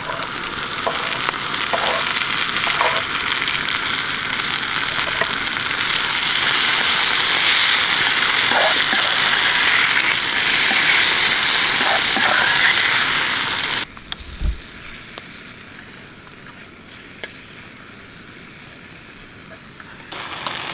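Chopped tomatoes, onions and green chillies sizzling in a steel frying pan on a portable gas stove, with light scrapes of a metal spatula as they are stirred. The sizzling grows louder partway through, then cuts off abruptly about two-thirds of the way in, leaving a much quieter background with a single low thump.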